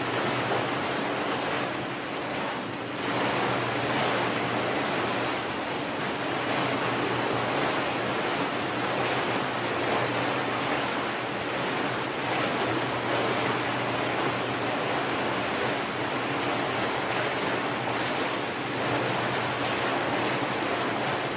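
Water running steadily into a bath, a continuous even rush.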